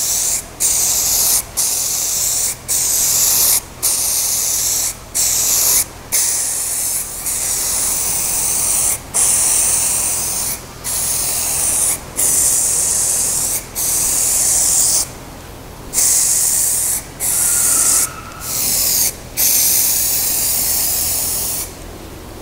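Aerosol can of Motip heat-resistant spray paint hissing in repeated spurts of about a second, with short breaks between them, as grey paint is sprayed onto an exhaust pipe and muffler. The spraying stops shortly before the end.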